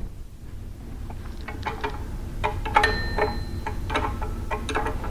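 Wrench tightening the locking nut on a belt grinder's tracking and tensioning device: a run of light metallic clicks, about two or three a second, with a brief metallic ring about halfway through.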